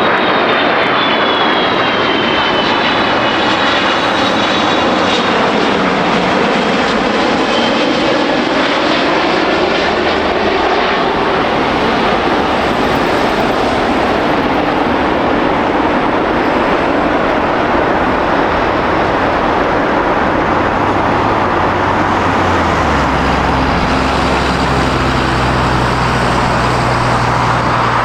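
Jet airliner engines close by: a loud, steady rush, with a high whine that falls in pitch over the first few seconds. A low, steady hum comes in near the end.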